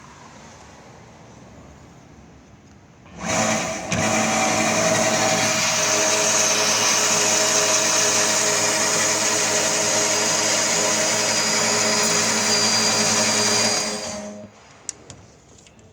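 YCM-170 portable band saw switched on about three seconds in, running steadily with a motor hum and a loud hiss for about eleven seconds, then winding down near the end.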